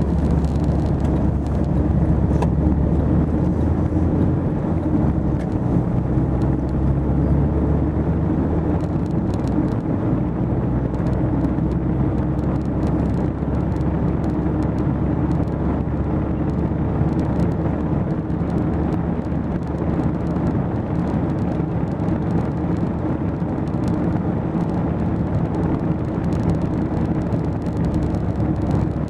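Car engine and road noise heard from inside the cabin while driving. The engine note shifts during the first ten seconds as the car picks up speed, then settles into a steady cruise.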